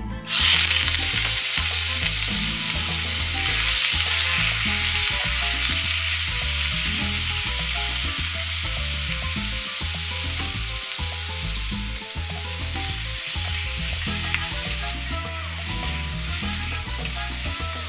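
Raw pork belly cubes dropped into hot oil in a pot, sizzling as they fry and stirred with a wooden spatula. The sizzle starts suddenly about half a second in and eases a little in the second half.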